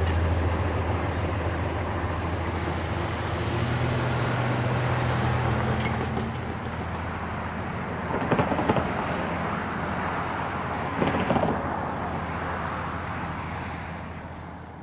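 Passenger train going by: a steady low locomotive rumble over rail and wheel noise, with short bursts of clanking about eight and eleven seconds in, slowly fading near the end.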